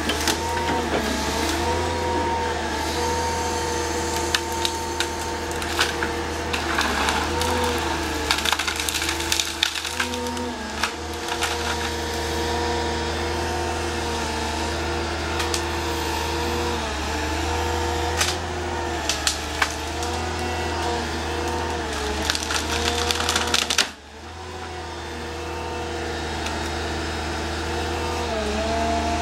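Carrier machine's engine and hydraulics working a tree shear gripper, the engine note dipping now and then under load, with wood cracking and splintering as branches and stems break in the grab. About three-quarters of the way through, the cracking stops abruptly and only the engine goes on.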